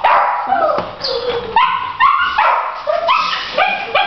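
Dogs barking repeatedly, two or three barks a second.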